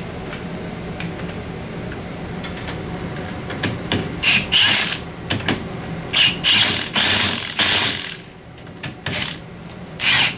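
Cordless impact wrench tightening the 15 mm nuts on newly fitted ball joints at a UTV's front steering knuckle. It runs with a steady rattle at first, then fires in several short, loud hammering bursts from about four seconds in.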